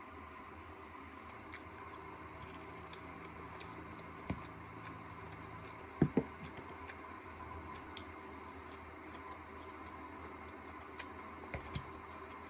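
Close-up eating sounds: crisp salad greens being chewed and handled with chopsticks, giving scattered small clicks and crunches, with two sharp clicks close together about halfway through. A faint steady hum runs underneath.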